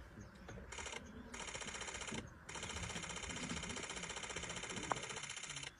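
A rapid, high-pitched pulsing buzz that switches on about a second in, breaks off twice briefly and stops abruptly near the end, with one sharp click shortly before it stops.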